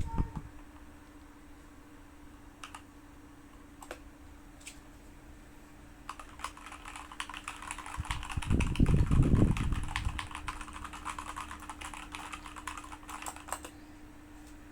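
Keychron K2 mechanical keyboard with Gateron Brown switches being typed on: a few separate keystrokes at first, then fast continuous typing from about halfway through, with heavier low thuds mixed in for a second or two, before it stops near the end.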